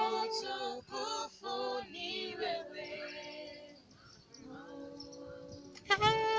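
Background music with a sung voice. The singing fades down near the middle and comes back strongly near the end.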